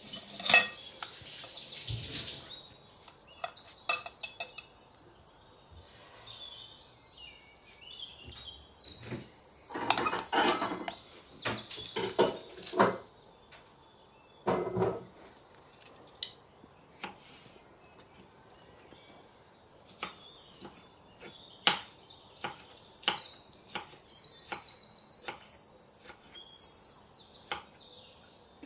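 Small birds chirping in short runs of high calls, with scattered light clicks and taps of a utensil handling food on a wooden board.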